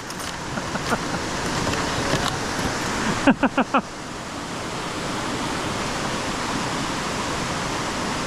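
Steady rushing noise, like wind or moving water, filling the background. A brief cluster of four or five quick pitched sounds about three and a half seconds in.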